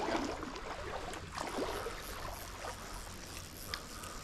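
Shallow river water sloshing over the steady wash of the flowing current, with two louder swishes: one right at the start and one about a second and a half in.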